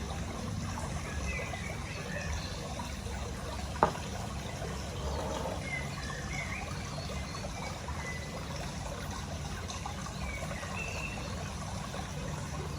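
Steady low background rumble with faint short chirps high up and a single sharp click about four seconds in.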